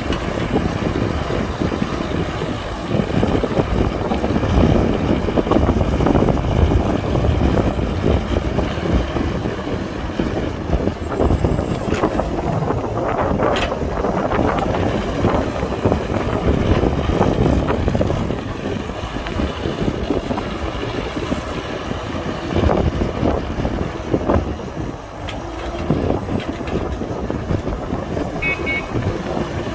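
Excavator's diesel engine running under load while digging and loading dirt, its level swelling and easing as it works, with a couple of sharp knocks about halfway through.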